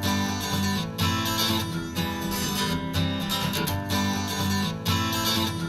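Instrumental opening of an acoustic pop song: a strummed acoustic guitar over bass and light percussion, recorded through an in-ear monitor for a sound comparison.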